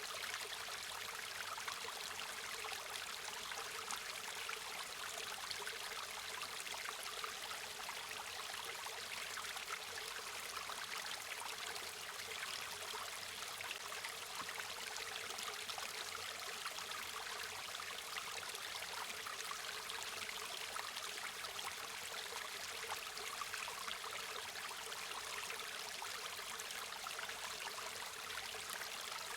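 A river or stream flowing steadily, a continuous rushing and trickling of water with no breaks or changes.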